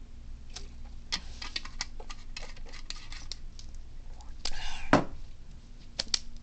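Air conditioner humming steadily under a run of small clicks and rustles, with a man's loud breathy sigh just before five seconds in.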